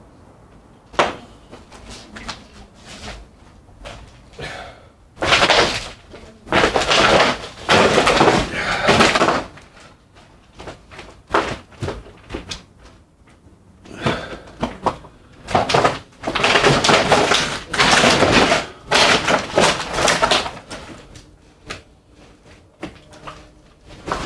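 Footsteps crunching and scraping over rubble and broken debris, with sharp knocks. The sound comes in uneven bursts and is loudest in two long stretches, from about five to ten seconds in and from about fourteen to twenty-one seconds in.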